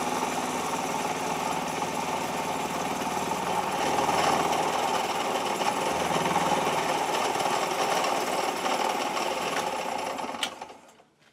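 Dore Westbury vertical milling machine with an end mill taking a cut in a metal column, the cutter chattering steadily as it throws off chips. The noise dies away shortly before the end, with a sharp click as it stops.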